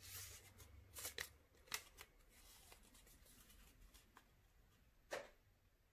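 Faint rustles and light crinkles of a small folded paper slip being opened and handled, spaced out, with one sharper rustle about five seconds in.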